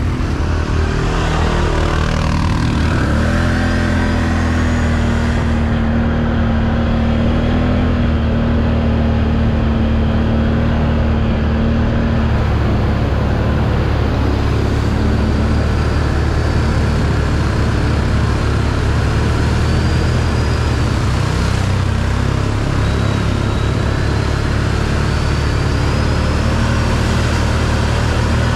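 Can-Am 1000 ATV's V-twin engine running steadily while riding, the engine note climbing about three seconds in and then holding.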